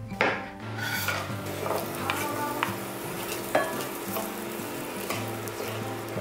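A knife chops once through garlic onto a wooden cutting board, then sausage pieces, garlic and chili sizzle in oil in a frying pan while a wooden spatula stirs them, with scattered small scrapes and taps against the pan.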